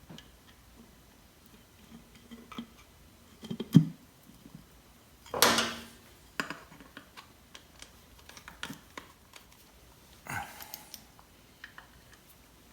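Small tools and metal parts being handled on a workbench: scattered light clicks and taps, a sharp knock near four seconds, and a louder clatter about five and a half seconds in that fades over half a second.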